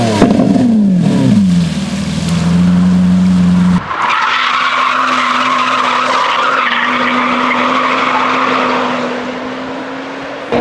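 A supercar engine's revs falling away and then holding a steady note. After a sudden cut, a car's tyres squeal loudly over an engine holding a steady, slowly rising note, fading a little near the end.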